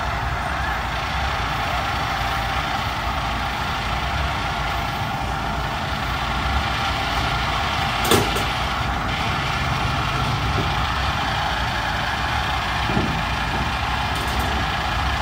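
Heavy engine running steadily, with one sharp knock about eight seconds in.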